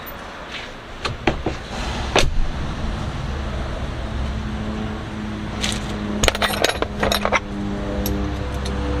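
Small metal parts and tools clinking and clicking as rock lights are bolted to their brackets with a socket: a few single clinks, then a quick cluster of them near the middle. Background music with steady held notes comes in partway through.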